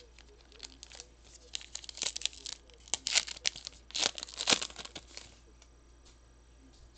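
Trading-card pack wrapper being torn open and crinkled by hand: a run of sharp crackling tears, loudest about three and four and a half seconds in, stopping after about five seconds.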